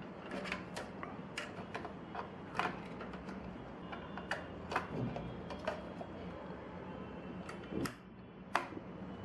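A desktop computer memory stick being fitted into a motherboard's RAM slot: irregular light plastic clicks and taps as it is handled and lined up, with a few sharper clicks, the sharpest near the end.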